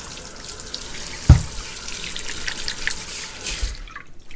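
Kitchen faucet running into the sink as something is rinsed under it, with one sharp knock about a second in; the water shuts off near the end.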